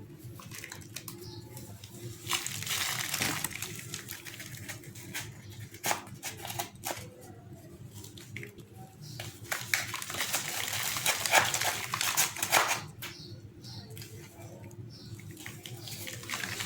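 Gritty sand-and-cement chunks crumbling in water: crackling and fizzing in uneven bursts, with many sharp clicks, over a steady low hum.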